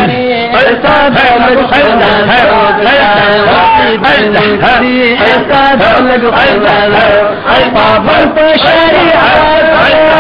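A man singing a Pashto naat, a devotional hymn of praise, unaccompanied, the melody sliding up and down between long held notes.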